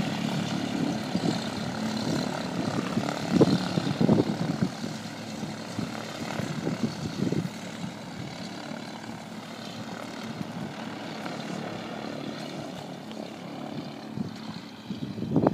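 STOL CH 750 light aircraft's propeller engine droning steadily and gradually fading. A few brief bumps come through about three to four seconds in and again at the end.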